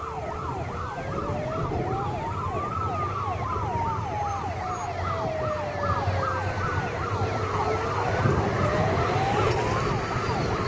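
Sirens of two fire engines, a Star 266 and a Jelcz 422, running together on an emergency call. One is on a fast yelp of about three falling sweeps a second, the other on a slow wail that rises and falls over several seconds. Under them is a low rumble of truck engines and road traffic.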